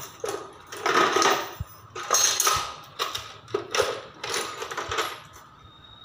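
Metal hand tools clattering and scraping against each other as a hand rummages through a wooden toolbox: a string of short jangling rattles, about one a second, that stop shortly before the end.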